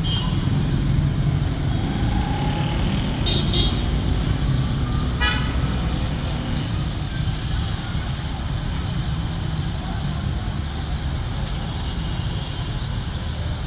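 Steady street traffic noise, with a brief rapid pulsing sound about five seconds in.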